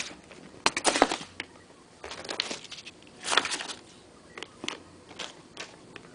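Cardboard box and its packed contents being handled: scattered scrapes, rustles and light knocks as items are put back in the box.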